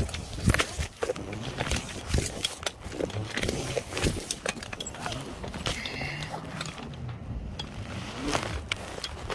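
Irregular clinks, knocks and rustling of a climber's gear against a steel lattice tower during a descent.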